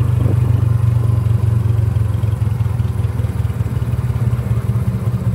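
Small motorcycle engine running steadily while under way, heard from aboard, as a loud low throb with fast even pulses.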